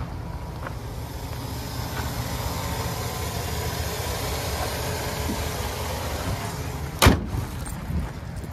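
2011 Chevrolet Silverado's 4.3-litre V6 gas engine idling steadily. Near the end a single loud slam as the open hood is shut.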